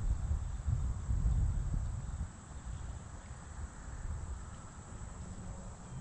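Outdoor park ambience: a steady high-pitched insect chorus, under a low, uneven rumble that is loudest in the first two seconds.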